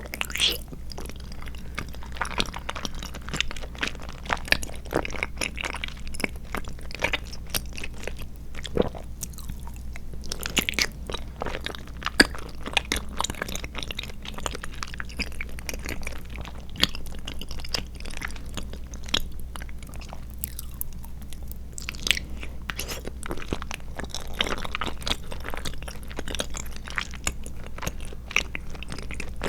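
Close-miked chewing of tapioca pearls and milk-tea and coconut milk jelly: a steady run of soft, irregular squishy clicks and smacks.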